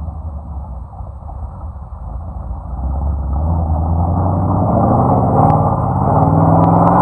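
A four-wheel-drive vehicle's engine running, then revving harder and getting louder about three seconds in. A few sharp knocks come near the end.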